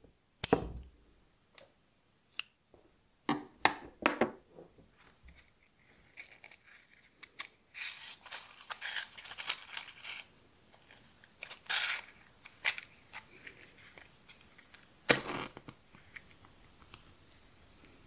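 Scissors snipping candle wicks, several sharp cuts in the first few seconds, then a matchbox being handled with a dry rustle, and a match struck and flaring about fifteen seconds in.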